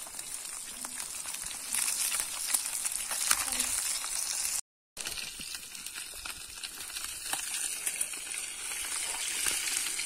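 Small whole fish frying in hot oil in a pan over a wood fire: a steady sizzle with many small crackles and spits, and the scrape of a fork and spatula as the fish are turned. The sound cuts out for a moment about halfway through.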